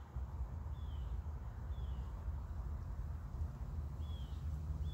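Four short, high bird chirps, each falling in pitch, spaced unevenly about a second or more apart, over a steady low rumble.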